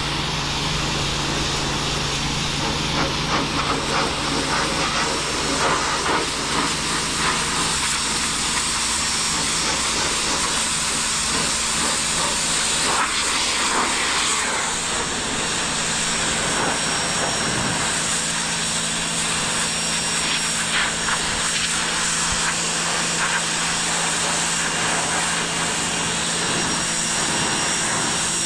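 Small electric pressure washer running: the motor's steady hum under the hiss of the high-pressure water jet spraying.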